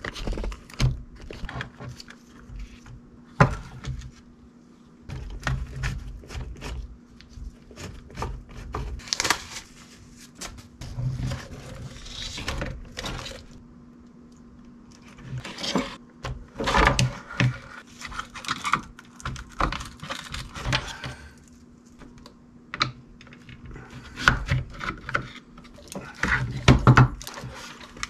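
Irregular clicks, knocks and rattles of the hard plastic chassis and parts of an Arrma Typhon 3S RC buggy being handled and fitted together on a workbench, over a faint steady hum.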